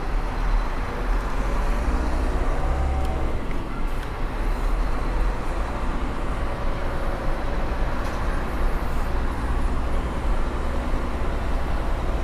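Heavy truck's diesel engine running at low speed while maneuvering, its note swelling briefly about three seconds in.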